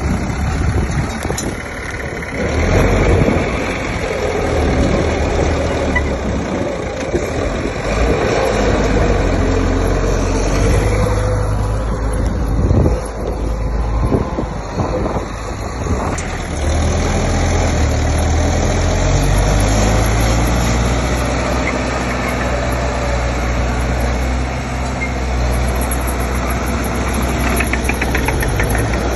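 Diesel engine of heavy earthmoving machinery running steadily, with a few knocks around the middle.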